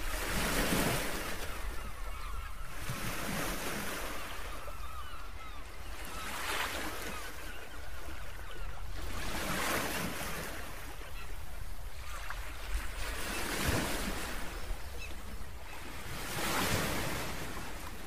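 Surf breaking on a beach, in washes that swell and fade about every three seconds, with wind rumbling on the microphone underneath.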